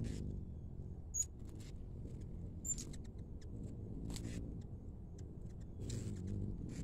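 Hummingbirds darting around a feeder: two short, high chirps about a second in and again near three seconds, then a few faint ticks, over a low steady rumble.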